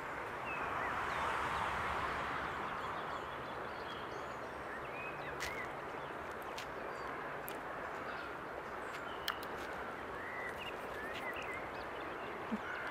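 Woodland ambience: a steady even hiss that swells a little about a second in, with scattered faint bird chirps and a few light clicks.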